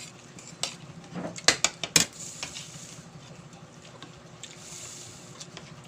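Dishware and utensils clinking against a plate while food is served and eaten, with a quick cluster of sharp clinks about one and a half to two seconds in, then faint handling noise.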